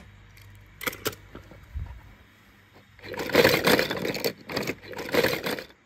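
Small die-cast toy cars clattering together in a plastic basket: a few light clicks about a second in, then several seconds of rattling in quick bursts.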